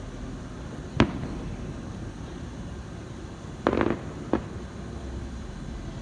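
Fireworks going off: a sharp bang about a second in, a short crackling burst a little before four seconds, and another bang just after it.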